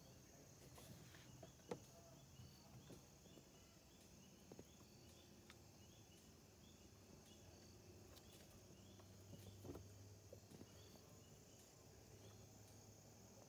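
Near silence outdoors: faint insects, likely crickets, chirping at an even pace over a steady high hiss, with a few faint clicks.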